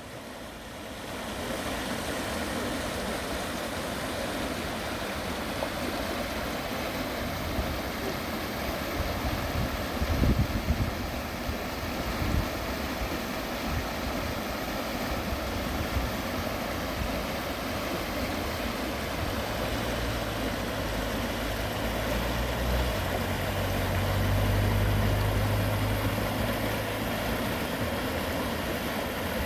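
Small urban stream running full after rain, its water rushing steadily. A low steady hum joins for several seconds after the middle, and a few low rumbles come around a third of the way in.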